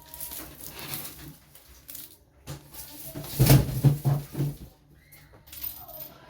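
Handling noise as produce is moved around and set down: rustling with light knocks, and a louder clatter about three and a half seconds in.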